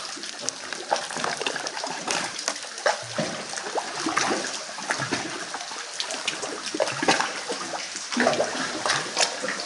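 Lake water sloshing and slapping against the sandstone walls of a sea cave, a steady wash broken by many irregular sharp splashes.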